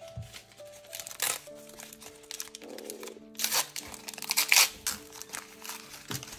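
Plastic wrapping crinkling and tearing as small toy accessories are unwrapped by hand, with the loudest crinkles about three and a half to four and a half seconds in. Light background music with held notes plays throughout.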